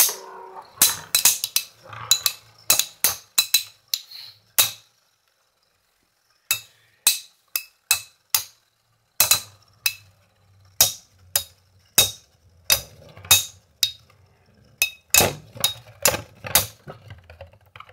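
Two Metal Fight Beyblade spinning tops clashing in a plastic stadium: a rapid, irregular run of sharp metallic clacks with a slight ring. The clacks break off for a short lull about five seconds in, then carry on.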